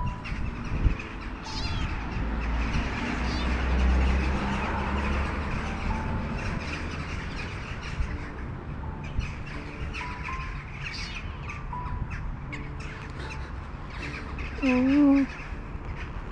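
A young kitten meowing, with one loud wavering meow near the end, over soft background music and low street rumble.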